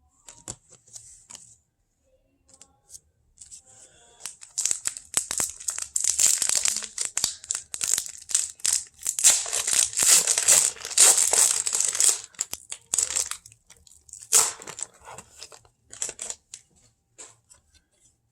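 Wrapper of a 1999-00 Topps basketball card pack being torn open and crinkled: several seconds of dense crackling tearing in the middle, with scattered crinkles before and after.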